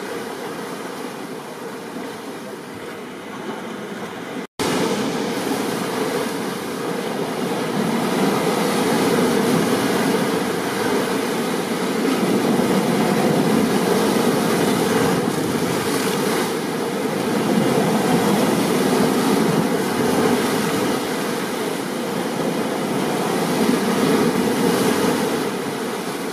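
Steady, heavy rain noise. It cuts out for an instant about four and a half seconds in, then comes back a little louder.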